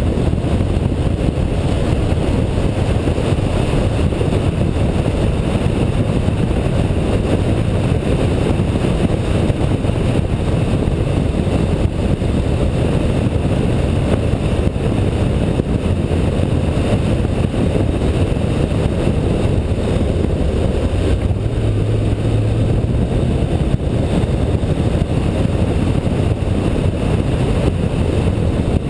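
Car at speed on a road-racing circuit: a steady mix of engine, wind and tyre noise. A steadier low engine note stands out briefly about three-quarters of the way through.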